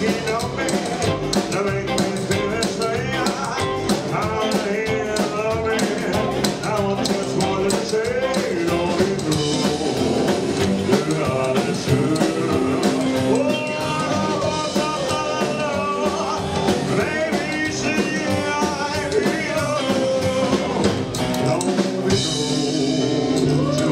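Live rock and roll band playing: a singer with electric guitar, keyboard, bass and drum kit.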